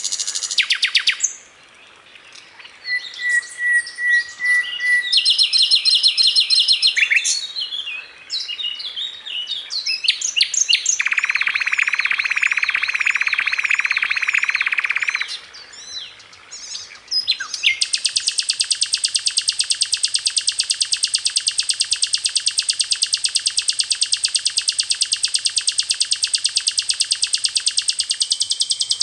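Sikatan londo singing: a varied run of quick chirps, warbled phrases and a lower dense trill, then a long, very fast, even trill held for about eleven seconds through the end.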